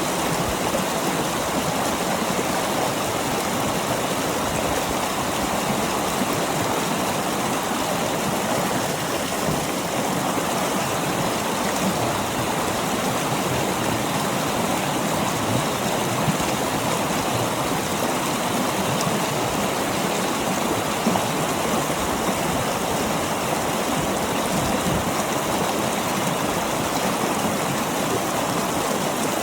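Small upland waterfall, water splashing and pouring over rocks into a stream in a steady, unbroken rush.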